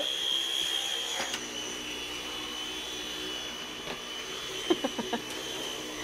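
Cordless stick vacuum cleaner running with a steady high whine. About five seconds in there is a quick run of sharp knocks, which is the loudest moment.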